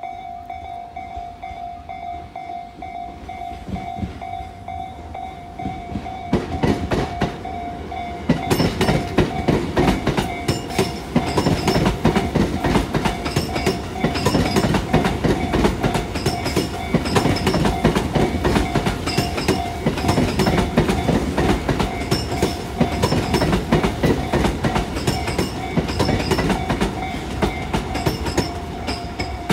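Tobu 70000 series electric train passing, a low rumble that builds and then turns to loud rapid wheel clattering over the rail joints from about eight seconds in. A steady thin high tone sounds underneath throughout.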